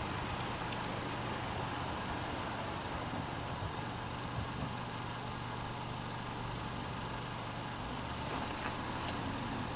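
Police SUV's engine running as it drives off slowly: a steady low hum under an even wash of street noise.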